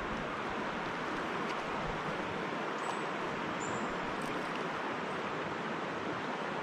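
River water rushing in a steady, even wash.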